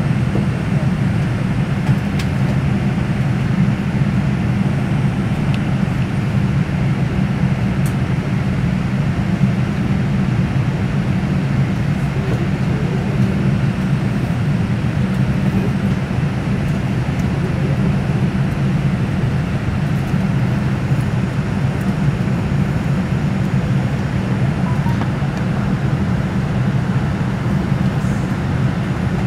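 Airliner's turbofan engines running at low taxi power, heard inside the passenger cabin as a steady, even rumble.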